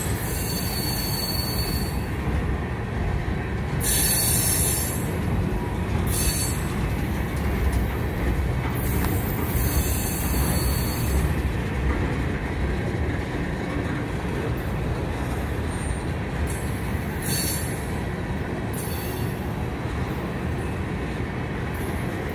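Freight cars of a Conrail train rolling past, a steady rumble of wheels on rail, with short high-pitched wheel squeals several times.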